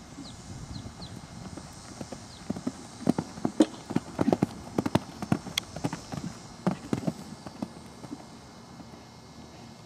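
Horse cantering on sand arena footing: a run of hoofbeat thuds that grows loudest about three seconds in as the horse passes close, then fades away.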